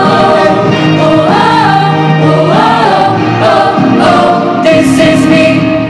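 Closing music with a choir singing long held notes.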